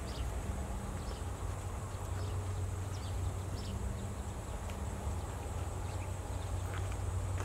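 Outdoor ambience: a steady low hum under a faint high insect drone, with scattered short high chirps every second or so.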